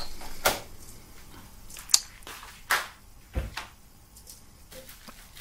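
Kitchen handling noises while food is prepared: a handful of separate knocks and clacks of utensils and objects being set down and moved, the sharpest about two seconds in.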